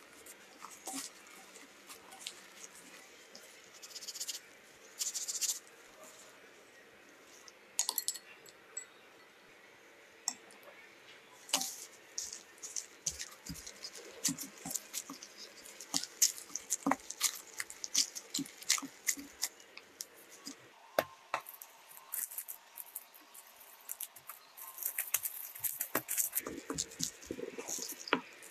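Gloved hands rubbing butter into flour in a glass bowl and then kneading it into a dough: soft rubbing and squishing with many small crackling clicks, sparse at first and growing denser, with a thicker stretch of crackling near the end.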